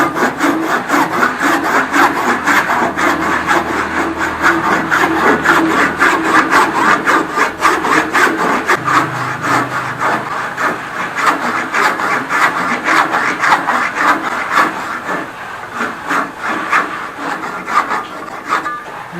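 Hand saw cutting into wood with steady, rapid back-and-forth strokes, sawing the kerfs for a dado; the saw cuts roughly. The strokes stop near the end.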